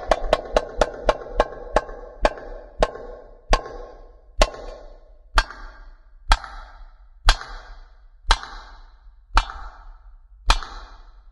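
Single sharp percussion strikes from belly dance music, each with a short ringing tail, slowing from about three a second to about one a second.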